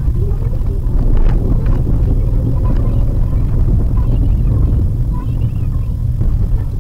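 Steady low rumble of road and engine noise inside a Maruti Suzuki WagonR's cabin as it drives over a broken, patchy road.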